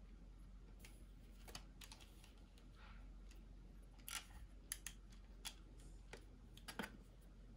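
Faint scattered plastic clicks and taps from a Tamiya Magnifying Visor 1.7X being handled, its headband and flip-down lens frame knocking and snapping as it is turned over and adjusted.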